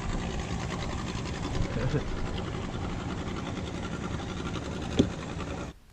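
Boat motor running steadily, with one sharp click about five seconds in; the sound cuts off abruptly near the end.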